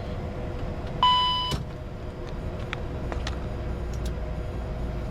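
Steady cockpit hum of a Bombardier Challenger 605 parked with its engines shut down and the APU running, with a single electronic beep lasting about half a second, a second in, and a few light switch clicks.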